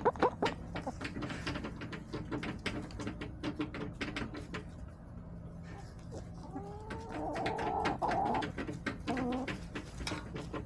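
Backyard hens vocalizing: about six and a half seconds in, a hen gives a drawn-out, wavering call lasting a couple of seconds, followed by shorter calls. Many quick taps and clicks run throughout.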